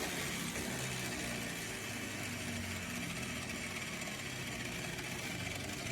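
Small electric motor running steadily, with a low hum under an even whirring hiss.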